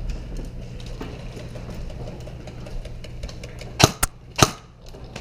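Airsoft gun firing three sharp cracks in quick succession near the end, over a low steady rumble.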